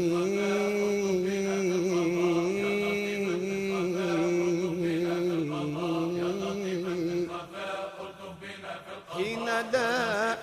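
Tunisian Sufi devotional chant (ibtihal) sung by male voices, drawing out one long melismatic syllable that slides slowly up and down in pitch. It fades about seven seconds in, and a new phrase with a wavering vibrato begins near the end.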